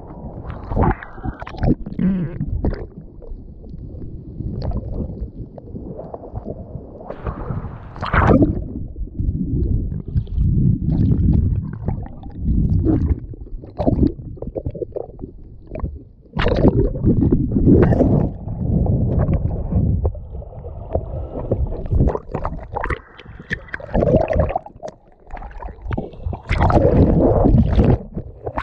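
Rough sea sloshing and surging in irregular loud waves, with splashes and gurgling, heard through a waterproof action camera at the waterline so the sound turns muffled whenever water washes over it.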